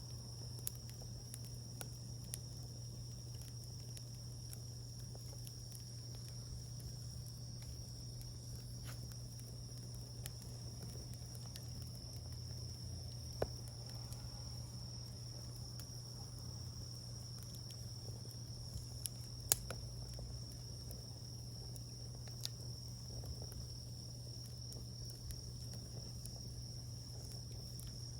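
Wood campfire crackling, with a few sharp pops, the loudest one about two-thirds of the way through. A steady high-pitched insect drone, like crickets, runs underneath.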